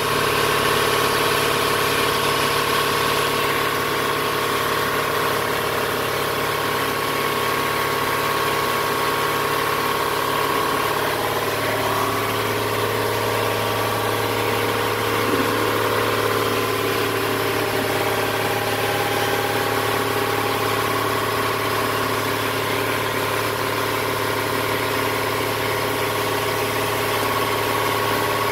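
A machine running with a steady hum, its low tone shifting slightly about eleven seconds in.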